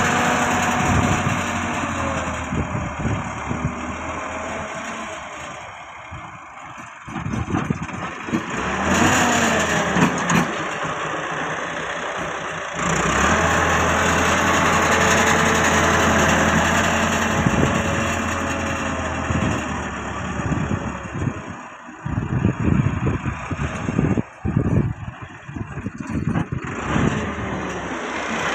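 Massey Ferguson tractor's diesel engine running while working soil, its pitch and loudness rising and falling with the throttle. It quietens about five seconds in and drops off again briefly several times near the end.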